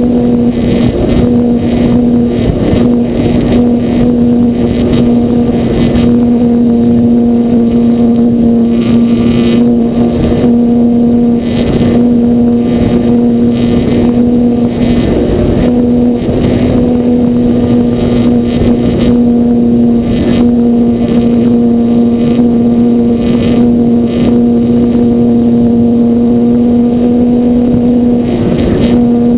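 E-flite Apprentice 15e's brushless electric motor and propeller running at a steady, high pitch, holding one note with slight wavers in throttle, with rushing air buffeting the camera's microphone.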